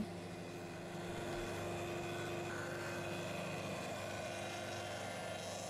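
Table-mounted router running at a steady high speed while a wooden leg post is fed past a roundover bit, rounding over its edges.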